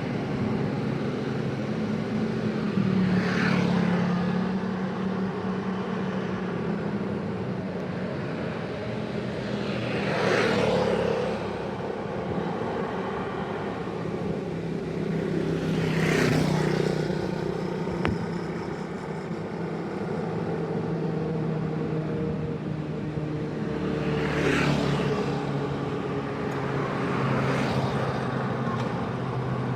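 City road traffic: a steady hum of motor vehicle engines, with vehicles passing close by about five times, each swelling up and fading away, and a single short click partway through.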